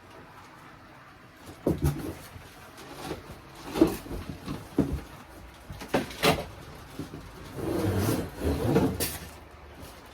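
Bike repair stand parts being pulled out of their cardboard box: several sharp knocks and clatters, then a couple of seconds of rustling, scraping packaging about three quarters of the way through.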